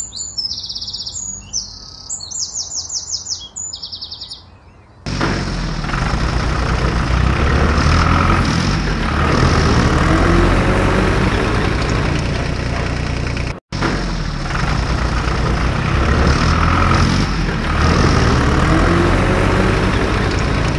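High electronic chirping beeps in short rapid bursts for about five seconds. Then a loud heavy engine sound starts abruptly and revs repeatedly with rising pitch, cutting out for an instant about two-thirds through before running on.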